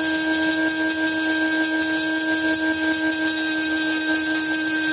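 High-speed rotary handpiece spinning a small burr against a stainless steel pistol barrel, a steady whine, as it removes the background metal around engraved scrollwork.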